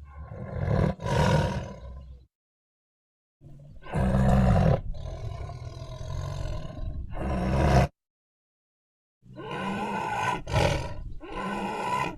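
Indochinese tiger roaring in three separate bouts with dead silence between them: a short double roar, a longer roar of about four seconds, then another broken roar near the end.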